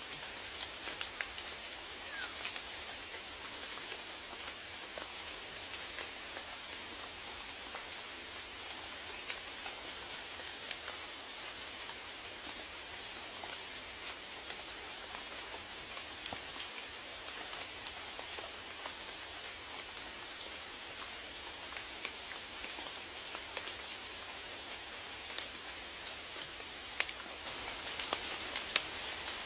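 Steady rain: an even hiss of falling rain with scattered individual drops ticking, a few louder drops near the end.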